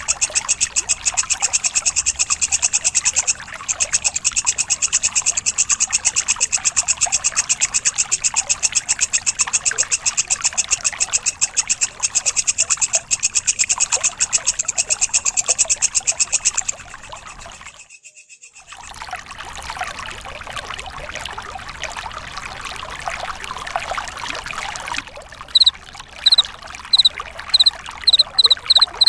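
Singing insects, crickets and walang kecek, in a harsh recording. A fast pulsing buzz runs for most of the first seventeen seconds and breaks off into a short near-silent gap. A softer rasping stretch follows, then loud, high, repeated chirps near the end.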